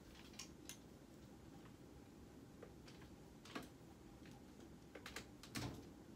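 Faint, scattered clicks and knocks of clothes hangers against a closet rail as clothes are moved, with a louder knock near the end.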